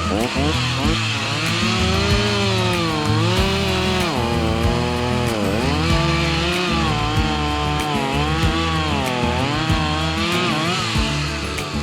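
Chainsaw cutting wood, its engine pitch repeatedly sagging and climbing back as the chain bites into the log.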